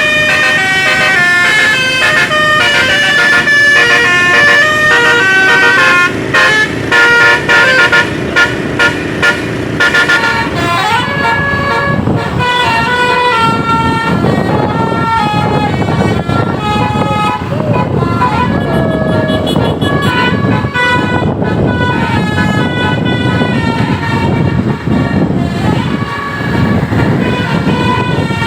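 A bus's Basuri 'telolet' musical horn playing a tune of stepped notes, with a run of short, quick blasts between about 6 and 10 seconds in. From about 11 seconds, voices and rougher noise join under the horn as the tune goes on.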